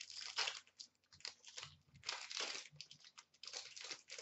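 Trading cards being slid and flipped through in the hands, one over another: a soft run of short, irregular paper-on-paper rustles and scrapes.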